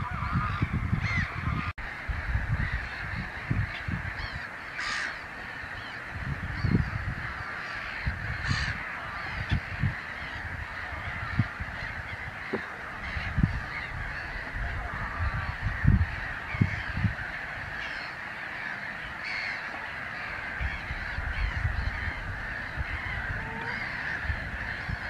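A steady chorus of many waterbirds calling at once, calls overlapping throughout, with irregular low rumbles on the microphone.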